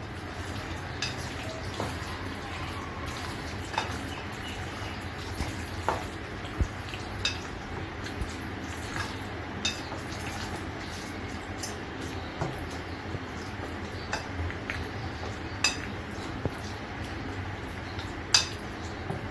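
Hand mixing mutton pieces with a wet spice and mustard-oil marinade in a bowl: soft wet mixing with scattered sharp clinks of the hand and ring against the bowl, the loudest near the end.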